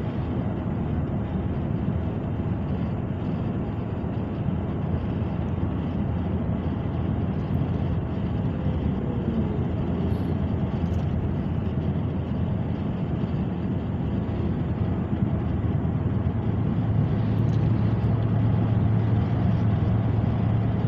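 Steady low road and engine noise heard inside a moving car, with a low hum that grows stronger near the end.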